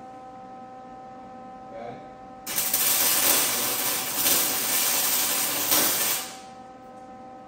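Electric arc welder laying a tack weld of a few seconds on a motorcycle frame's down tube: a loud continuous hiss that starts suddenly about two and a half seconds in and cuts off about six seconds in.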